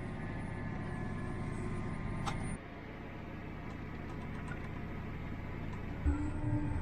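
Steady engine rumble of a running farm vehicle, a little quieter after a cut about two and a half seconds in.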